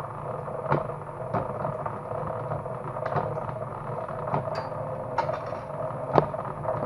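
Motor-driven cable stripping machine running with a steady hum, with scattered clicks and knocks as a piece of cable passes through it.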